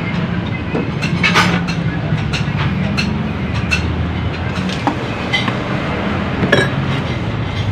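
Scattered light metallic clicks and clinks of small carburetor parts and hand tools being handled, over a steady low engine-like hum.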